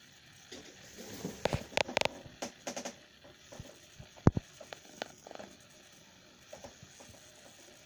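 Handling noise: a scatter of short clicks, taps and knocks over the first five seconds, with one sharp knock about four seconds in, then a few faint ticks.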